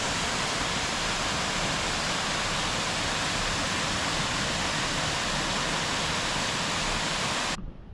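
Waterfall rushing steadily, a loud even roar of falling water that cuts off suddenly near the end.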